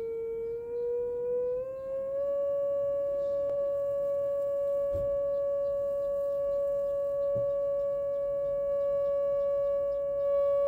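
A loudspeaker drives a cardboard Chladni plate with a steady pure tone from a signal generator. Over the first two seconds the tone glides up from about 433 Hz to about 563 Hz, then holds steady with faint overtones.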